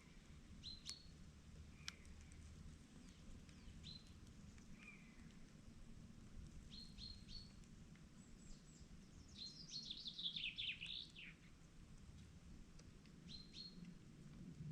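Wild birds chirping: scattered short high calls, with one rapid run of notes falling in pitch about ten seconds in, the loudest sound, over a faint steady low hum.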